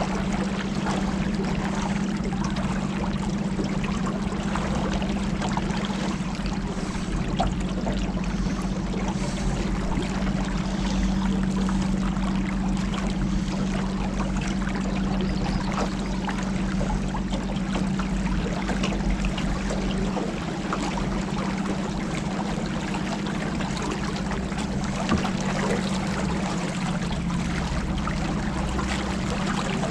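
Motorboat engine running steadily at cruising speed, a constant low hum, with water rushing and splashing along the hull.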